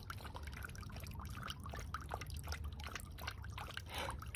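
A small dog lapping water from a shallow paddling pool: a string of small, irregular wet laps and drips.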